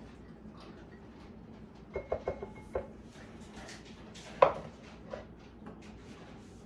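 Kitchen utensils knocking against dishes as ketchup is emptied from a measuring cup into a bowl of egg and milk: a few quick clinks with a short ring about two seconds in, then one sharper knock a little past halfway.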